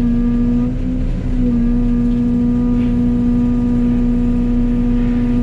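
Excavator-mounted Fecon forestry mulcher head spinning with a steady hydraulic whine over the excavator's diesel engine. The pitch and level sag briefly about a second in as the head is brought down on a sapling, then the head comes back up to speed.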